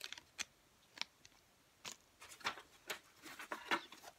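Beauty-sample packaging being handled: a few separate light clicks and taps, then a denser run of crinkling and clicking about halfway through.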